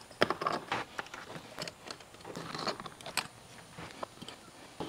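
Scattered light clicks and rattles of small screws and a hand tool being handled on a workbench while the fuel primer pump is screwed back onto its filter housing, with a few sharper clicks spread through.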